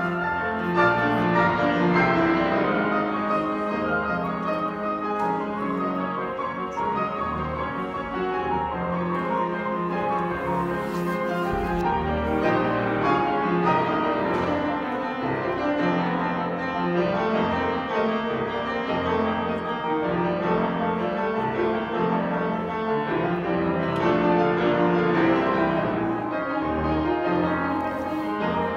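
Grand piano played as a four-hands duet, a continuous stream of notes and chords in a lively classical style.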